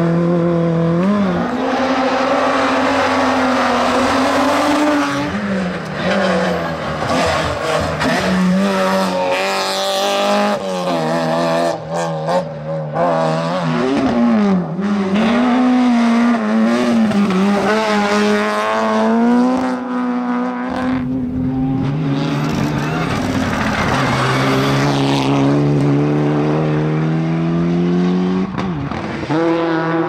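Rally cars at full throttle on a hillclimb, passing one after another, their engines revving hard with the pitch rising through each gear and dropping at every shift.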